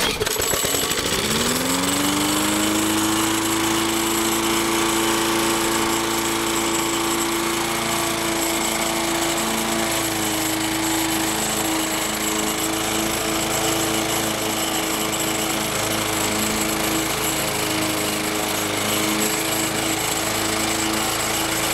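Small four-stroke lawn mower engine, fed on gasoline vapor from a bubbler vaporizer instead of liquid fuel, catches at once. It climbs in pitch over the first couple of seconds and then runs steadily.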